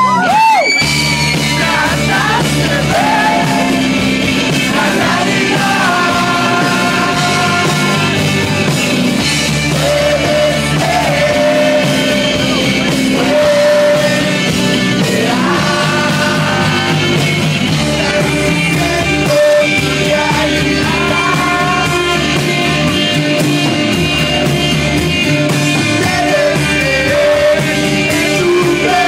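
Rock band playing live, with a man singing lead over guitar and band.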